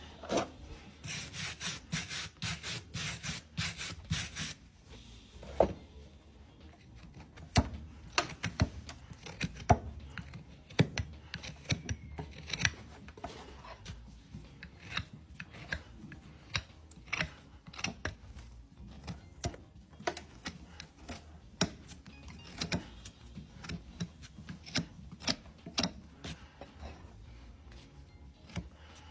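Farrier's tools working a horse's hoof: a quick run of rasping strokes about a second in, then irregular sharp clicks and scrapes of the hoof being trimmed.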